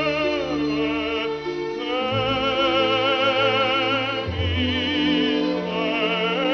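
Background music: a voice singing long held notes with strong vibrato in operatic style, over low sustained accompaniment that changes note every second or two.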